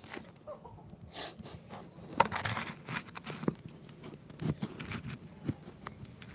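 Scattered clicks, taps and rustles of handling close to a phone's microphone, irregular and with no steady rhythm.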